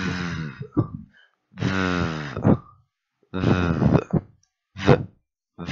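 A person demonstrating the voiced English 'th' sound /ð/: a buzzing 'thhh' made with the tongue between the teeth and the vocal cords vibrating, drawn out three times for up to about a second each with short pauses between.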